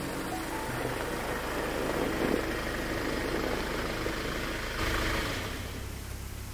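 Hyundai Starex van's engine running as the van rolls slowly over snowy ground. It comes to a stop about five seconds in and is left idling with a low hum.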